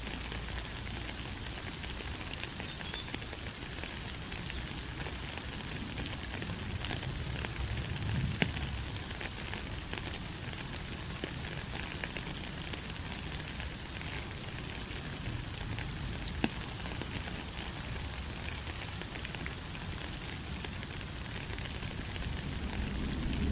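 Steady rainfall hissing, with many scattered sharp ticks of drops hitting a surface. A few brief high chirps come through now and then.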